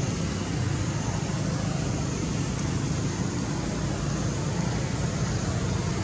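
Steady low rumble with a hiss over it, unchanging throughout.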